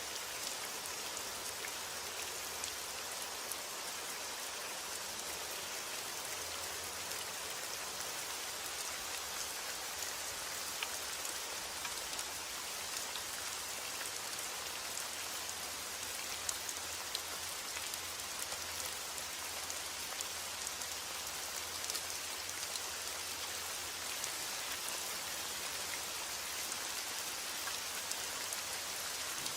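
Steady rain falling, a dense even hiss with many small drop ticks scattered through it.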